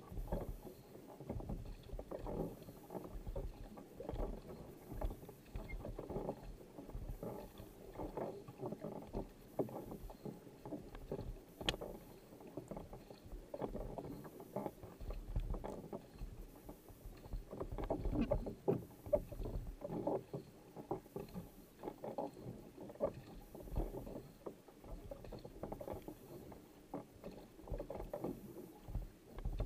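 Sprint kayak being paddled hard: the paddle blades catching and pulling through the water beside the hull in a steady rhythm of splashes, close to the boat.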